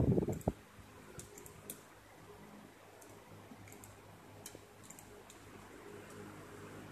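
Faint, scattered light clicks, about a second or two apart, over a low steady hum; the clearest click comes about half a second in.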